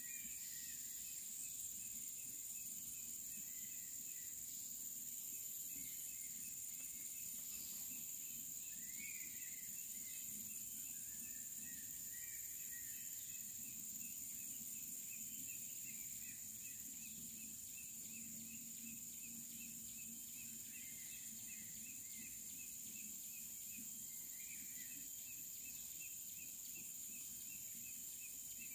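Steady high-pitched drone of insects, with a few short bird calls now and then.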